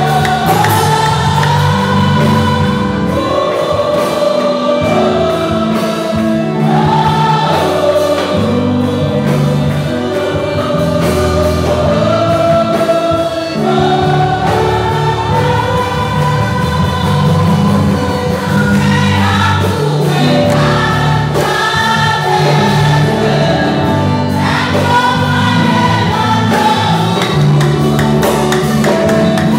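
Church congregation singing a gospel worship song together in chorus, loud and unbroken.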